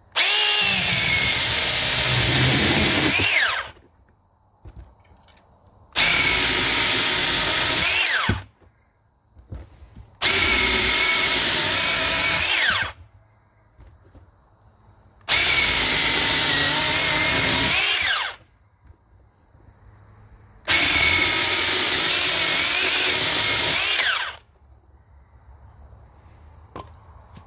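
21-volt battery mini chainsaw with a 6-inch bar, its electric motor and chain whining in five separate runs of about three seconds each as it cuts through small logs, the pitch dipping under load and falling as each run winds down.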